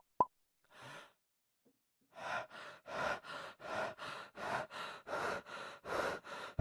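Heavy, rapid panting, about three breaths a second, starting about two seconds in and getting louder, like someone out of breath from running. A short pop comes right at the start.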